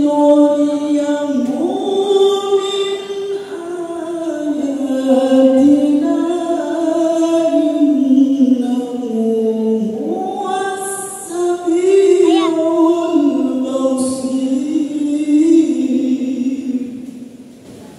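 A male qori reciting the Qur'an in the melodic tilawah style into a microphone. He holds long, ornamented phrases whose pitch slides up and down, and the last phrase dies away near the end.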